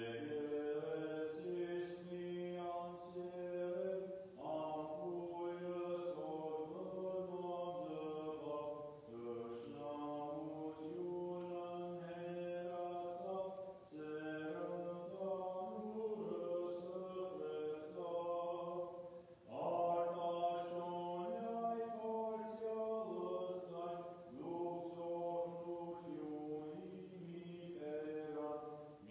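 Armenian liturgical chant sung in long held notes that step from pitch to pitch, in phrases of about five seconds with a short breath between each.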